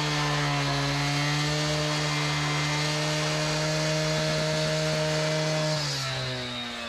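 Handheld power tool motor running at a steady pitch, then switched off about six seconds in, its pitch falling as it winds down.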